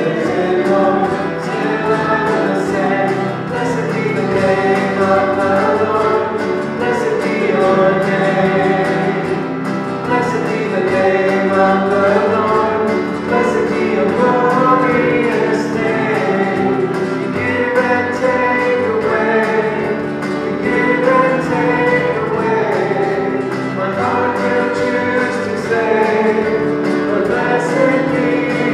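Live worship band performing a gospel-style song: male and female voices singing over acoustic guitar, keyboard and an electronic drum kit.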